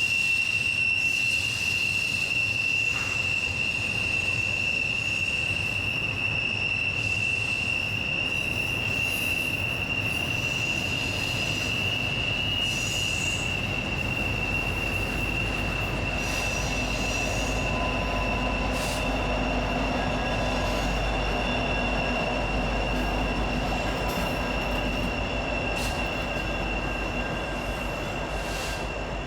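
Freight train wheels squealing in one high, steady tone as the flanges grind around a sharp mountain curve. A low diesel rumble, likely the rear helper locomotives, builds from about halfway through.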